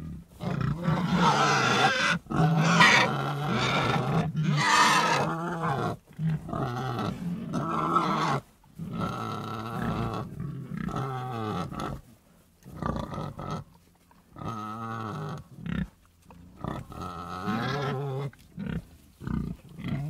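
Domestic pigs grunting and squealing in a long run of calls. The first six seconds are a dense stretch of loud, high squeals; after that come shorter grunts with brief pauses between them.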